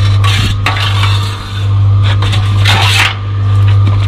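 Steel bricklaying trowel scraping and clinking against mortar and brick in a few short strokes, over a steady low hum.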